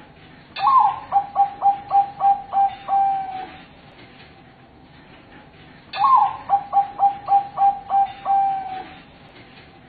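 Zebra dove (Bangkok-type perkutut) singing two song phrases about five seconds apart, each a higher opening note followed by a quick run of about seven short coos and a longer final coo.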